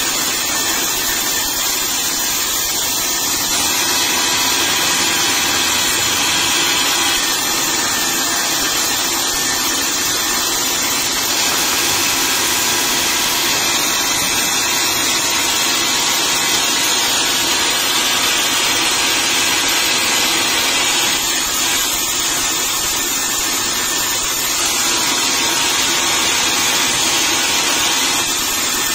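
Horizontal band sawmill running steadily as its blade rips lengthwise through a log, a continuous even machine-and-cutting noise.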